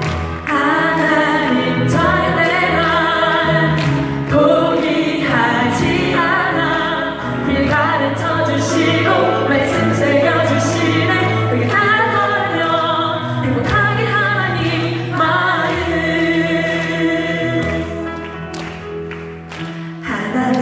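A choir singing a Christian hymn-like song over instrumental accompaniment, the voices wavering with vibrato over a bass line that moves every couple of seconds.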